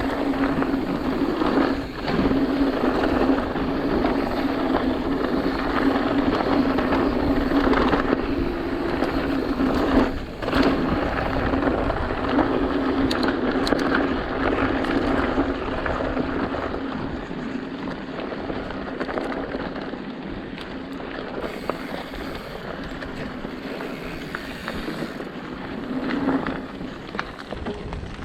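Mountain bike riding a rough dirt trail: tyres rolling over dirt and rock with the bike rattling and clicking and a steady buzz, and a sharp knock about ten seconds in.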